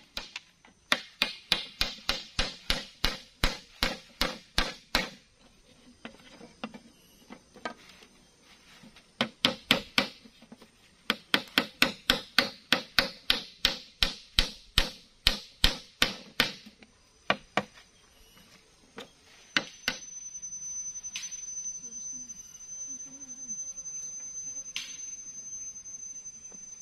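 Rapid hammer blows, about three sharp strikes a second, in three runs with short pauses between them, then a steady high-pitched tone for the last few seconds.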